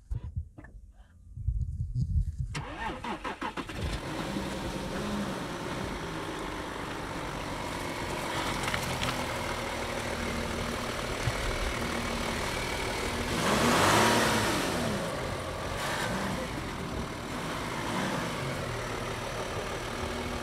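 First-generation Audi Q7's engine starting about two seconds in, then running steadily as the SUV drives off-road. About two-thirds of the way through it revs up and back down in one swell.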